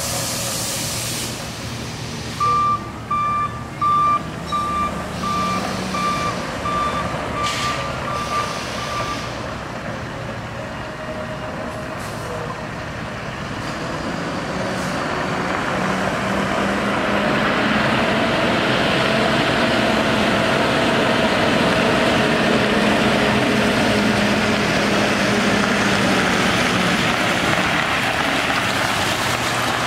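Water hissing from a truck's sprayers cuts off after a second or two. A backup alarm then beeps about one and a half times a second for several seconds. After that the truck's Caterpillar C7 diesel runs as it drives forward in low gear, with the hiss of the spray growing louder as it comes closer.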